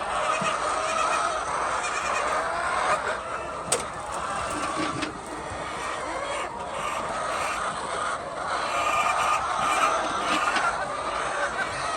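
Many chickens clucking and chattering at once, a continuous din of overlapping calls from a flock, with one sharp click about four seconds in.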